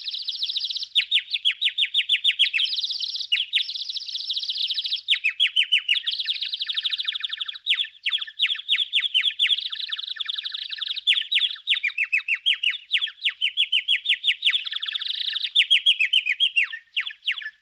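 Songbird singing: fast, continuous runs of high chirps and trills, which stop abruptly near the end.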